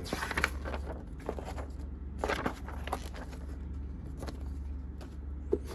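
Paper rustling and crackling as the pages of a printed instruction manual are handled and turned, in several irregular crisp rustles, over a steady low hum.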